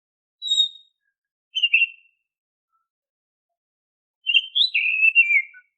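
Oriental magpie-robin (kacer) singing its clear whistled song: two short whistles about a second apart, then a longer warbling phrase that steps down in pitch near the end.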